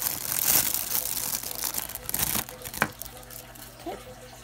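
Thin clear plastic bag crinkling as it is pulled open by hand, then a single sharp click near three seconds in.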